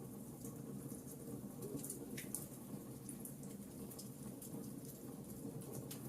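Burning charcoal giving off faint, irregular small crackles and ticks over a steady low rumble, with one louder crackle about two seconds in.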